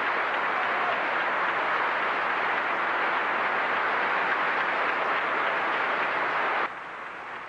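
Large crowd applauding steadily, dropping suddenly to a quieter level near the end.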